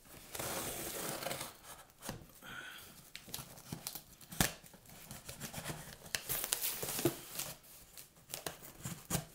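Scissors slitting the packing tape along the seam of a cardboard shipping box, a long scraping tear in the first two seconds, then scattered rustles and clicks of tape and cardboard as the box is worked open, with one sharp click about halfway through.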